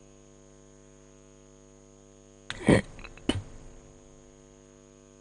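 Steady electrical mains hum, a stack of even tones. About two and a half seconds in comes a brief loud burst of noise, and a sharp click follows a moment later.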